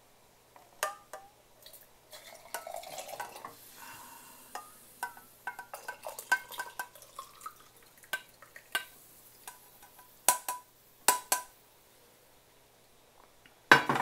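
Liquid poured from a hammered metal pan into a glass sake cup, with a string of sharp clinks, each ringing briefly, as the pan and glass knock together. The loudest knock comes near the end, as the pan is set down on the gas stove's grate.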